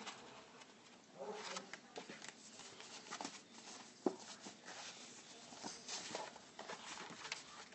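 Sheets of paper being handled and shuffled by hand: faint rustling with scattered light clicks and taps.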